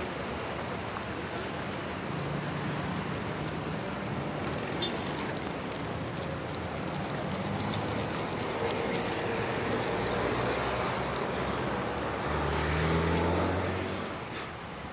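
City street ambience: steady road-traffic noise, with a motor vehicle's engine passing close and growing louder shortly before the end.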